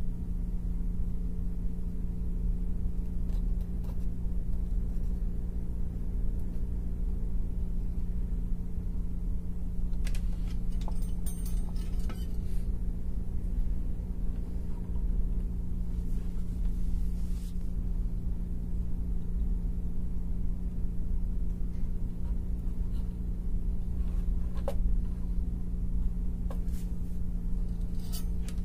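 A steady low hum with small clicks and clinks from wires and parts being handled while an amplifier is wired up; a cluster of clicks comes about ten seconds in and a few more near the end.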